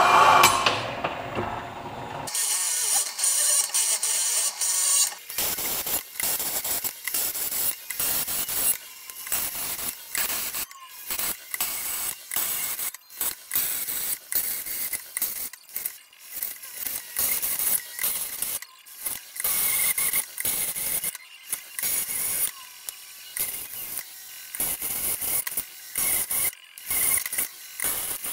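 A drill bit in a benchtop mill-drill cutting through a thick steel tube wall, with rapid, irregular clicking and crunching as the chips break off.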